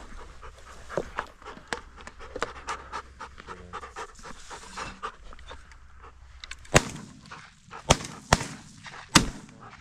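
A dog panting, then four shotgun shots in quick succession over about two and a half seconds, starting about two-thirds of the way in.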